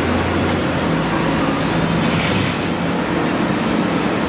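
Diesel engine of a heavy JCB earthmoving machine running, with its note shifting slightly about a second in.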